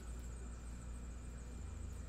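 Steady low hum with faint hiss: background room tone, with no distinct handling sounds.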